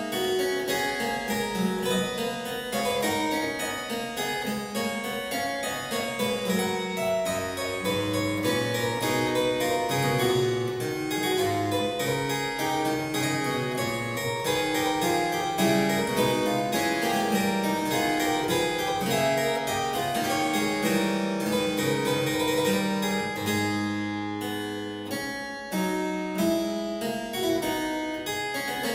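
Solo harpsichord music: a continuous run of plucked notes in several voices over a moving bass line.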